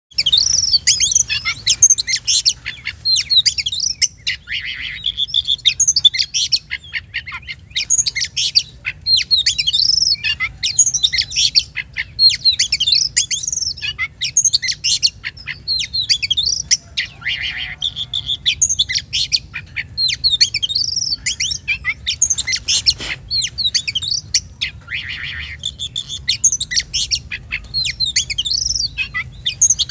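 Oriental magpie-robin (kacer) singing continuously: a fast, varied song of whistles, trills and chirps with only brief pauses. It is a lure song of the kind played to provoke a kept magpie-robin into singing.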